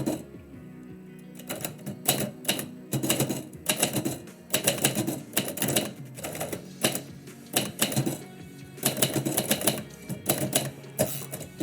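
Typewriter being typed on: quick runs of sharp key strikes with brief pauses between them, starting after a short lull about a second and a half in. Background music plays softly underneath.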